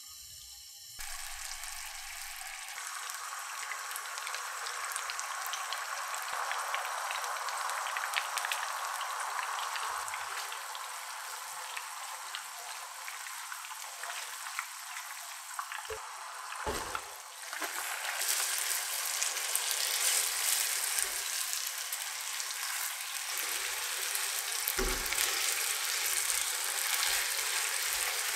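Soy sauce and corn-syrup sauce sizzling and bubbling hard on high heat in a nonstick wok. About halfway through there are a couple of dull knocks and the sizzle grows louder and brighter as glass noodles cook in the sauce and are tossed with tongs, with another knock near the end.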